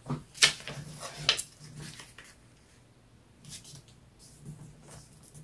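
Sheet of printer paper being handled, folded and creased, rustling and crackling in several short bursts, the loudest about half a second in and just after a second.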